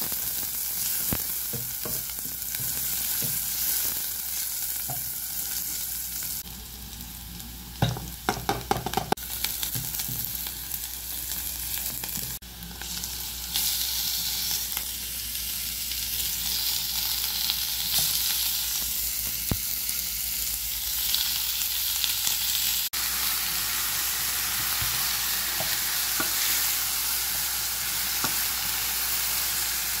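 Chopped onion sizzling in oil in a pot, stirred with a silicone spatula that scrapes the pan. About eight seconds in comes a quick run of knocks; from about fourteen seconds the sizzling is louder and steadier as raw ground beef goes into the pot and is stirred in to brown.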